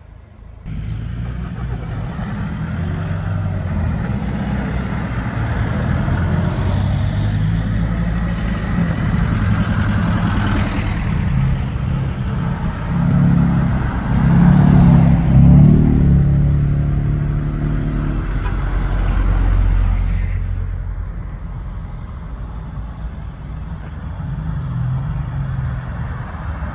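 Cars and a van driving off and passing close by one after another, their engines running; loudest around the middle as a car accelerates past, with the engine pitch rising.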